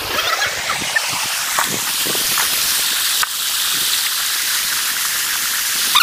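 Shallow mountain river rushing over stones, a steady hiss of flowing water, with a single sharp click about halfway through.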